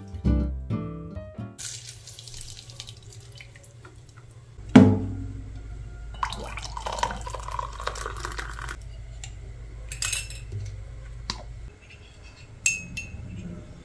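Water poured from an electric kettle into a ceramic mug for a few seconds, then a spoon clinking against the mug as the drink is stirred. A single loud knock comes a few seconds before the pouring, and soft music fades out at the very start.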